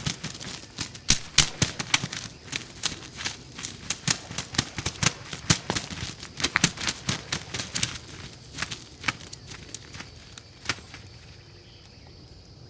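Shot wild turkey gobbler flopping in its death throes, its wings beating against dry crop stubble in a fast, irregular run of sharp cracks and rustles that thins out and stops about eleven seconds in.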